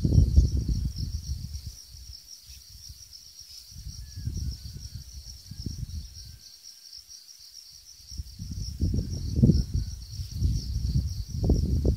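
Insects chirring steadily in a continuous high, pulsing chorus. Over it, low rumbling gusts of wind buffet the microphone: at the start, briefly about four seconds in, and most strongly over the last few seconds.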